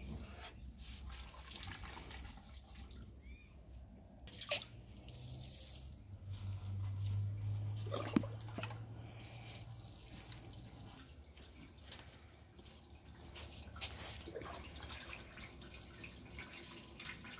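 Water scooped by hand from a steel bucket and poured from a small cup over freshly boiled noodles spread on a cloth, rinsing them: a series of small splashes and trickles. A low hum runs for a few seconds in the middle.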